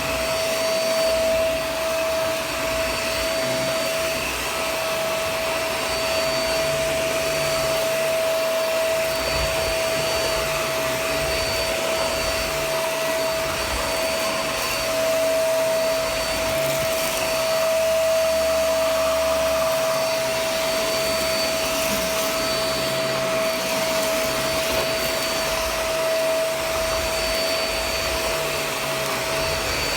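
Shark Vac-or-Steam vacuum cleaner running steadily over an outdoor rug, its motor giving a steady whine.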